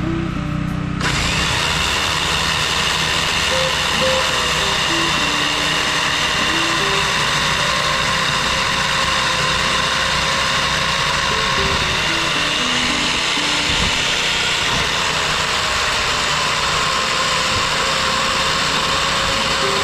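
A motor comes in suddenly about a second in and runs steadily at an even pitch, with background music continuing underneath.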